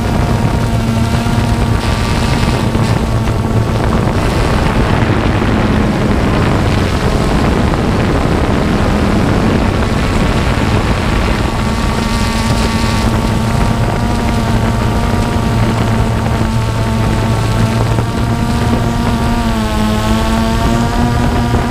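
Multirotor drone's electric motors and propellers humming steadily, picked up by the camera on the drone itself, with wind buffeting the microphone. Near the end the pitch dips and comes back up as the motors change speed.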